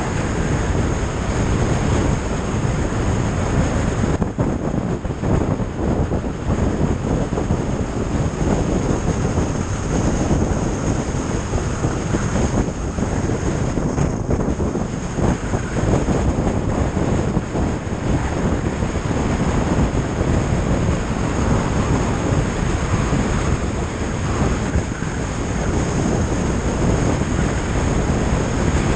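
Touring motorcycle cruising at a steady road speed: a continuous rush of wind buffeting the camera microphone, mixed with engine and tyre noise.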